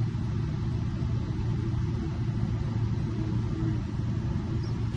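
Steady low mechanical rumble, even and unchanging, like a vehicle engine idling.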